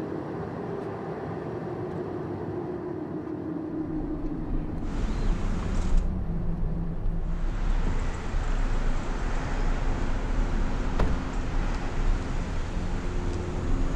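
Car running on the road: a steady engine and road-noise rumble that grows heavier about four seconds in, with a short rush of noise a second or two later.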